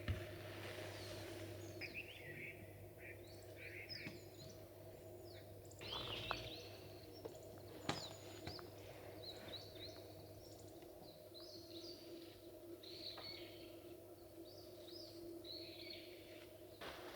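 Small birds chirping and calling, many short calls scattered throughout, faint over a steady low hum and a few light clicks.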